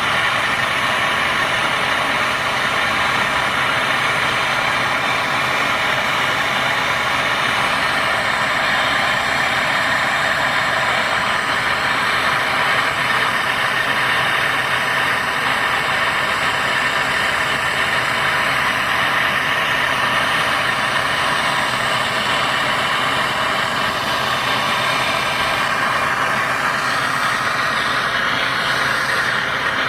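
Brazing torch flame burning with a steady hiss while heating a copper pipe joint.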